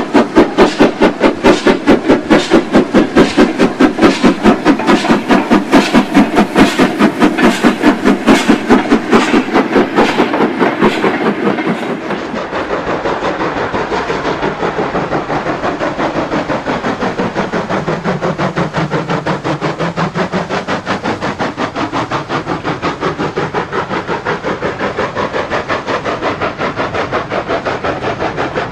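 Model steam locomotive running on the layout, giving a fast, even, rhythmic beat. It is loud for about the first twelve seconds, then drops to a quieter, steady rhythm.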